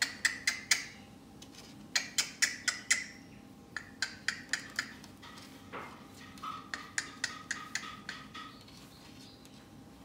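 Amazon parrot making runs of sharp clicks, four bursts of several quick taps each, while it plays and mouths at a hand.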